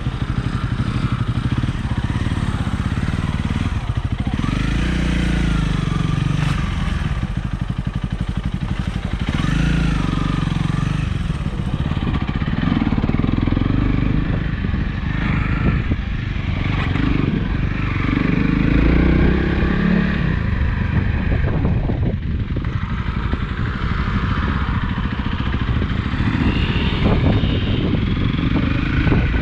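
Motorcycle engine running while the bike is ridden, its revs rising and falling.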